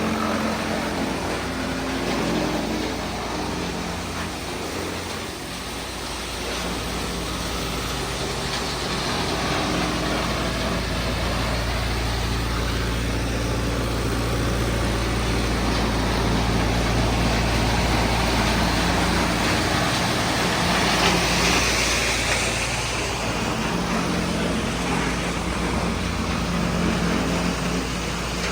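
Wood chipper machine running steadily, with a low engine hum under a dense mechanical noise; the hiss grows louder for a few seconds about three-quarters of the way in.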